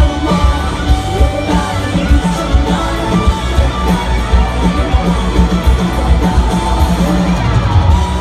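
Live rock band playing loudly through a big PA: a lead electric guitar solo with bends and gliding notes over piano, bass and drums.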